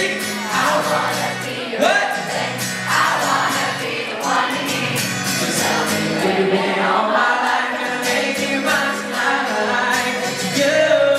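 Live pop music played over a concert sound system, with wavering sung vocal lines over the backing track.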